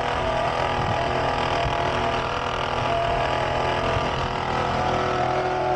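Car engine running steadily with a rubbing, rattling noise from the front of the engine, which the technician traces to a bad alternator that makes a loud noise every time it spins.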